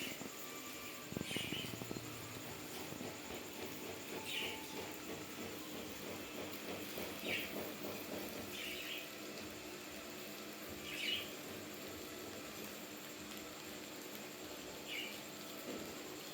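Albino lab rats feeding: quiet rustling and gnawing, with a short high chirp every two to three seconds.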